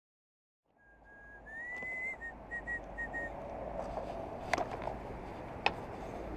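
A high whistle holds a note, glides upward, then breaks into four short whistled notes, over steady outdoor background noise. Two sharp clicks follow a few seconds later.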